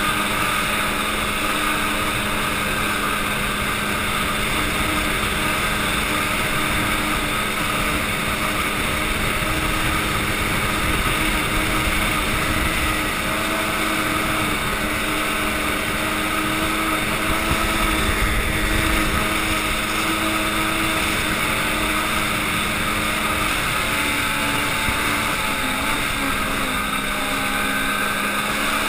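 Ski-Doo snowmobile engine running steadily at cruising speed. Its pitch wavers slightly near the end.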